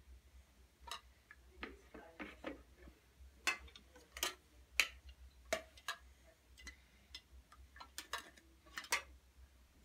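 Plastic toy dishes, cups and pot lids clicking and clacking as they are picked up and set down, in irregular single knocks.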